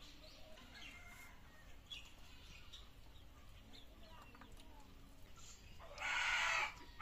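Village chickens calling faintly in the background, with a loud harsh chicken call lasting under a second about six seconds in.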